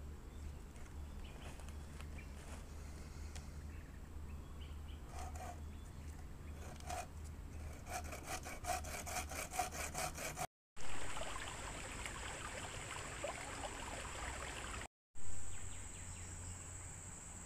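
Handmade bushcraft bowsaw, a steel blade tensioned in a frame of lashed sticks, cutting through a log in quick, even back-and-forth strokes. After a break comes a steady high hum of insects.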